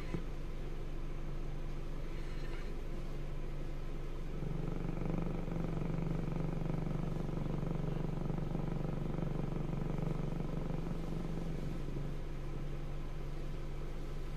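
Car engine idling while the car stands still, heard from inside the cabin as a steady low hum. The hum grows louder from about four seconds in and eases back down near the end.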